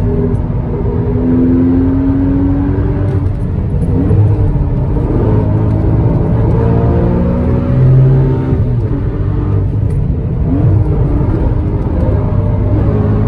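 Porsche Cayman S (981) flat-six engine at speed under hard driving. The revs climb and then fall several times with gear changes, over a steady road and tyre noise.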